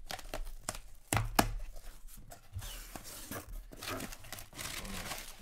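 Cardboard shipping box being torn open: sharp snaps and ripping of the packing tape and flaps in the first second and a half. After that, crumpled brown kraft packing paper rustles as hands dig through it.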